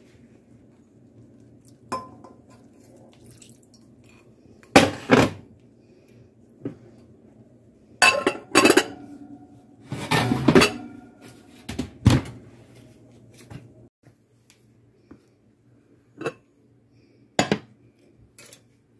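A metal spoon clinking and scraping against a ceramic casserole dish, then the dish's lid clattering on, in a series of sharp clanks a second or two apart that thin out near the end.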